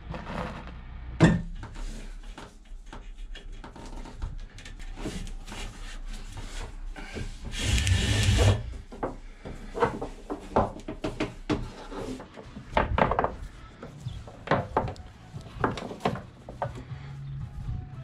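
Hands-on work noises: a run of knocks, clunks and rubbing, with a sharp knock about a second in and a longer rushing noise about eight seconds in.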